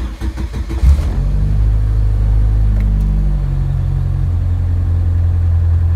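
Cold start at −20 °C of a partially built 2.2-litre pushrod four-cylinder with forged Wiseco pistons at wide piston-to-wall clearance. The starter cranks for about a second, the engine catches with a loud burst and runs at a steady fast idle that drops in pitch about three to four seconds in. The cold running carries what the owner calls piston slap.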